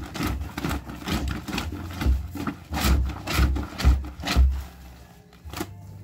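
Wet, soapy cotton shirts scrubbed by hand against the ribbed concrete washboard of a laundry sink, in quick repeated rubbing strokes about two to three a second, with heavier thumps in the middle; the scrubbing dies down near the end.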